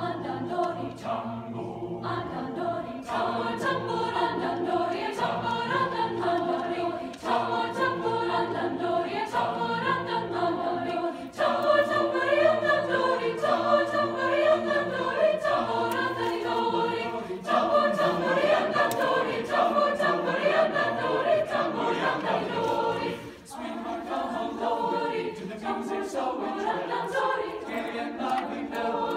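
Large mixed choir of male and female voices singing a piece in parts, in sustained phrases with short breaks between them.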